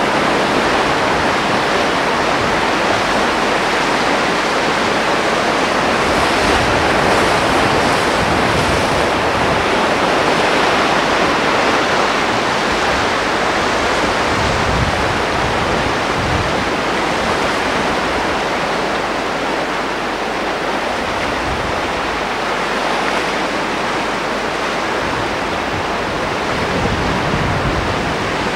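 Sea surf and wind making a steady rushing noise, with low gusts of wind buffeting the microphone a few times.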